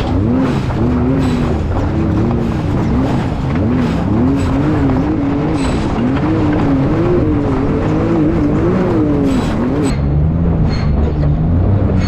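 Off-road rock buggy's engine revving hard in quick swells of rising and falling pitch as it crawls up a steep rock ledge, with scattered sharp knocks of the chassis and tires on rock. About ten seconds in, the engine drops to a lower, steadier pitch at the top of the climb.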